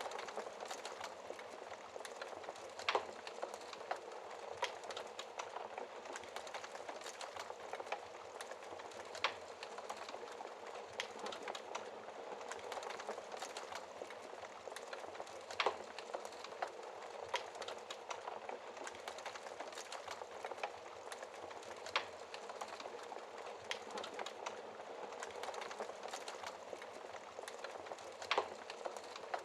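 Wood fire crackling in a fireplace: a steady hiss of burning with sharp pops and snaps at irregular intervals, a few of them louder.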